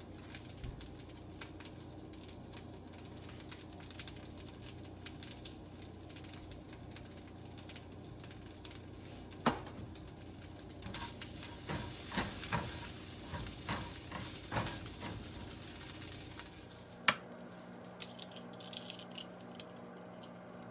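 Food sizzling in a frying pan, with a utensil stirring and scraping against the pan in a run of clicks through the middle and one sharp knock about two-thirds of the way in.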